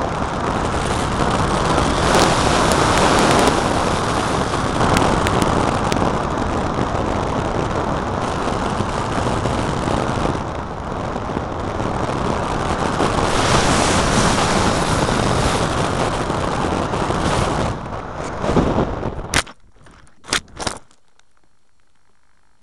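Rushing airflow over the onboard camera of a Starfire 48-inch EPP foam flying wing glider as it slope-soars fast along a cliff face. Near the end the rushing cuts off suddenly and several sharp knocks follow as the wing crashes into the scrub and bushes.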